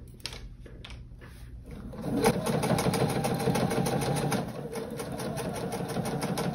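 Sewing machine stitching a binding seam through quilted fabric layers. It runs slowly and quietly at first, then speeds up to a steady, rapid stitching about two seconds in.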